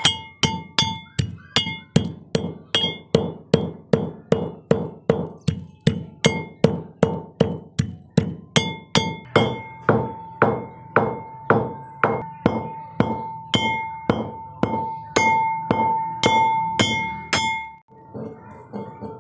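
Pestle pounding dry spices and licorice root in a metal mortar to grind them fine, with regular strikes about two to three a second. Each strike rings with a clear metallic tone, and there is a brief pause near the end.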